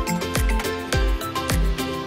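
Background music with a steady beat, a bass-drum thump about twice a second under a melody.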